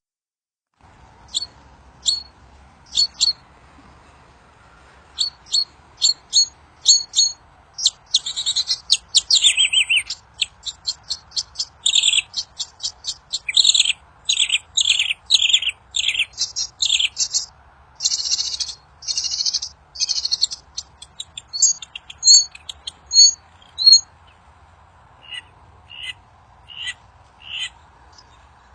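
Wild songbird of the kind Indonesian bird-keepers call the 'kincir angin' bird, giving short high chirps. The calls come in a fast, dense run from about 8 to 17 seconds, with many quick notes that fall in pitch, then thin out to spaced single chirps. A faint steady hiss runs underneath.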